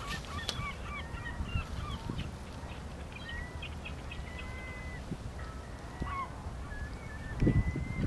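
A distant flock of gulls calling: many short, overlapping, hooked cries and a few longer drawn-out notes, over a steady low rumble. A brief loud low thump comes near the end.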